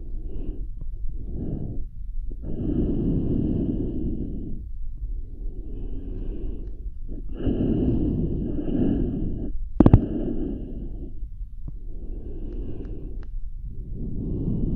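A person breathing slowly and heavily into a close ASMR microphone, performing a dinosaur's breathing: about six long breaths, each around two seconds. One sharp click comes a little under ten seconds in.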